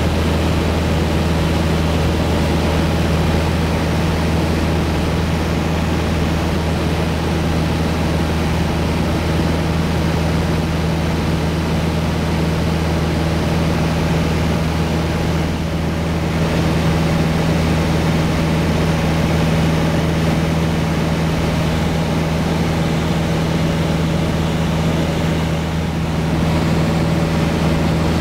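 Piper Arrow's four-cylinder piston engine and propeller droning steadily, heard from inside the cabin in flight, with a low, unchanging pitch and a constant rush of airflow noise.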